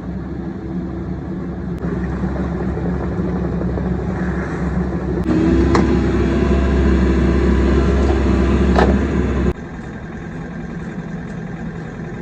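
A vehicle engine running steadily, in a few stretches joined by abrupt changes about five and nine and a half seconds in; the middle stretch is the loudest.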